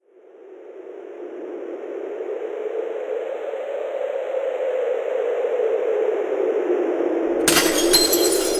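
A steady rushing noise fades in and builds, then near the end a sudden crash with ringing, glassy clinks starts.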